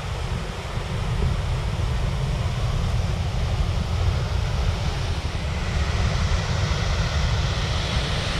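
Steady rush of waterfalls and a river running over rocks, with wind buffeting the microphone in a low rumble underneath.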